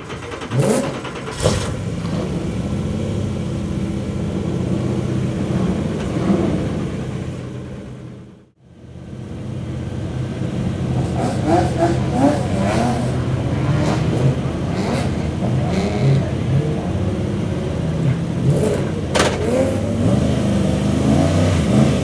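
Several racing cars' engines revving and accelerating together, pitches rising and falling as they go through the gears and pass. The sound cuts out for a moment about eight and a half seconds in, then comes back.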